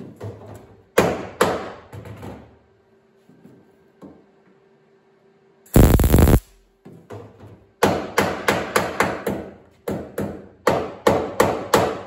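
A hammer strikes a sheet-metal body panel a few times. About six seconds in, a MIG welder crackles for about half a second as it lays a tack. Then comes a quick run of a dozen or so hammer blows, about three a second and each ringing briefly, which fold the freshly tacked patch in against the panel.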